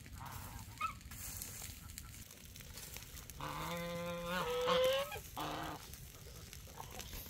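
Farm fowl calling: one drawn-out, honking call starting about halfway through, rising in pitch, then a short trailing note.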